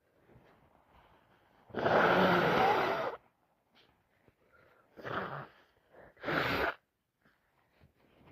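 A woman with a heavy head cold sneezing: a long, loud sneeze about two seconds in, after a faint building breath, then two shorter sneezes about five and six seconds in.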